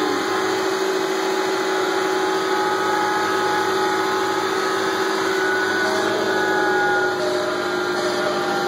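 Vohl snowblower tractor's engine running steadily while the machine drives along, with a steady whine over the engine note.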